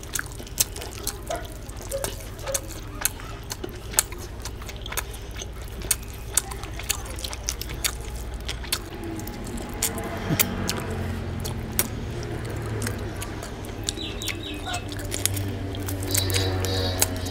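Wet clicks and squelches of a bare hand mixing rice and chicken curry on a plate, with a low hum joining in from about halfway. Mouth-eating sounds come near the end as a handful goes into the mouth.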